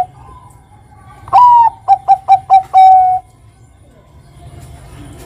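Zebra dove (perkutut) of the Bangkok type singing one song phrase, starting about a second in. It opens with a long note sliding down, runs into four short quick coos and ends on a long held note.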